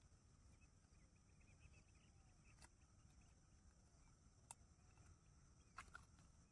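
Near silence with faint chirping in the background and a few small, sharp clicks as pliers work a hook free from a caught snakehead's mouth.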